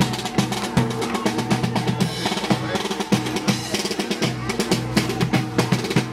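Marching band playing a march: snare and bass drums beat a steady rhythm over held low brass notes, including sousaphones.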